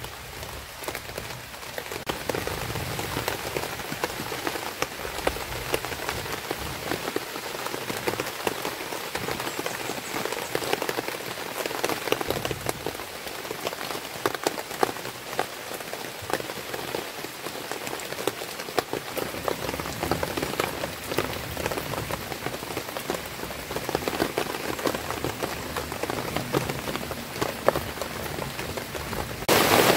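Light drizzle falling on leaves and bare ground: a steady hiss of rain with many separate drops heard. Just before the end it suddenly gets louder as the rain turns heavier.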